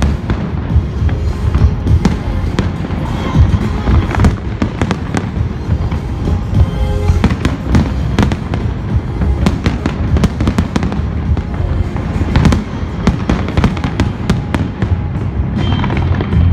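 Fireworks display going off in rapid, dense bangs and crackles, with music playing loudly underneath.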